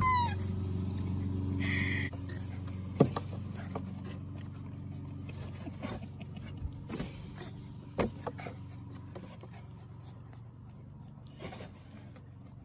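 A low steady hum stops about two seconds in. After that come a few scattered light knocks and scrapes, a dog nosing and pawing at a cardboard treat box cut with holes.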